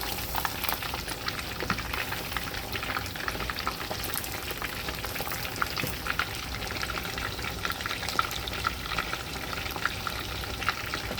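Chicken drumsticks frying in hot oil: a steady sizzle scattered with quick crackles and pops.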